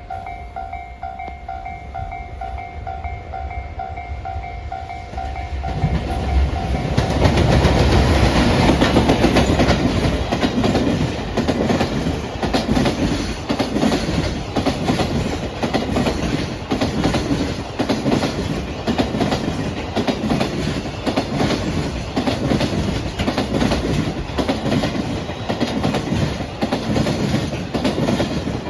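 A level-crossing alarm rings with a pulsing electronic tone, then a JR Freight EF210 electric locomotive arrives about six seconds in and a long train of Koki container flat wagons rolls past, the wheels clacking rhythmically over the rail joints.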